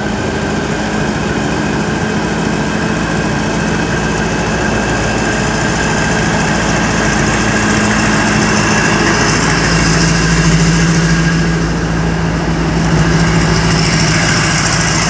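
Caterpillar diesel engine of a Thai railway diesel-electric locomotive working as the train pulls away beneath the listener. It gives a steady hum whose pitch drops slightly about nine seconds in, and a hiss comes in twice in the second half.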